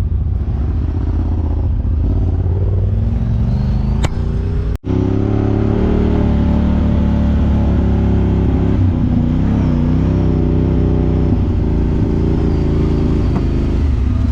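Side-by-side UTV engine running under way on a dirt trail, its pitch rising and falling with the throttle. A brief gap about five seconds in.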